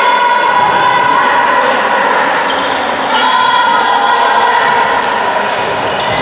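Handball being played on a sports-hall floor: the ball bouncing and striking, with shoes squeaking sharply and footfalls.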